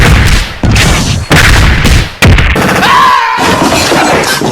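A run of very loud, distorted booms and crashes, about four in the first two and a half seconds, typical of a cartoon beat-down sound effect. A high held tone follows near the three-second mark, then it all fades out.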